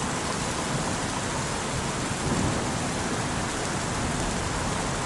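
Recorded rainfall: a steady, even hiss of heavy rain, with a brief low swell about two seconds in.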